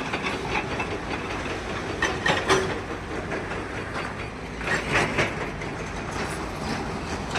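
Steady heavy machinery rumble with irregular clattering knocks, loudest a couple of times.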